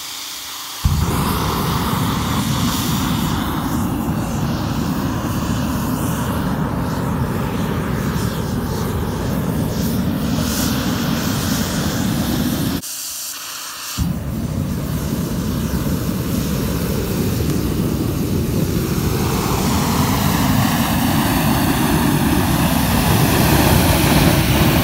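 Homemade air-fed liquid rocket engine lighting off a torch less than a second in, then running with a loud, steady rushing blast as the diesel mist burns in a jet of flame from its nozzle. The sound drops out for about a second near the middle, comes back, and grows a little louder near the end.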